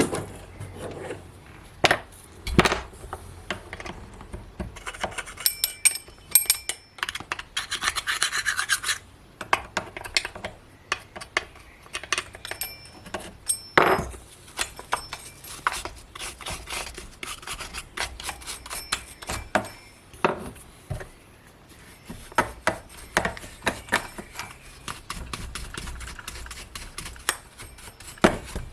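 Hand work on a chainsaw: scattered knocks and metallic clinks of parts being handled, with a stretch of scraping about eight seconds in.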